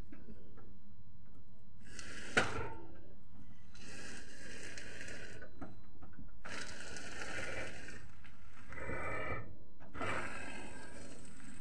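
Renault Mégane's front steering being turned toward lock with the ignition on: repeated bursts of scraping and creaking from the tyre and steering, one to two seconds each, with a sharp knock about two seconds in. It is the knock the owner hears at full lock, mostly to the right, which the steering parts he has already replaced have not cured.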